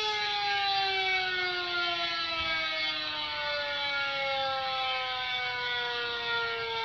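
Sterling M5 siren winding down: after holding a steady pitch, its two tones slide slowly downward together, the lower one fading out about halfway through.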